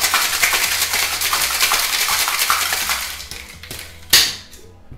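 Ice and frozen berries rattling hard in a stainless tin-on-tin cocktail shaker, in a fast even rhythm that fades out about three seconds in. About a second later comes one sharp, loud smack: the heel of the hand striking the shaker to break its seal.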